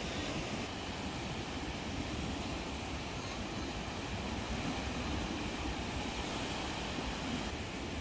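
Steady rumbling noise, heaviest in the low end, with no distinct events.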